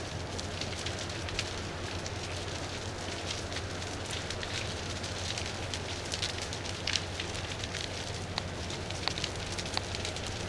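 Large brushwood bonfire burning, crackling with many sharp pops scattered over a steady rushing noise.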